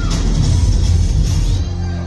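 Loud backing music for a ramp walk, with a heavy, pulsing bass beat; near the end the high end drops away as the track changes.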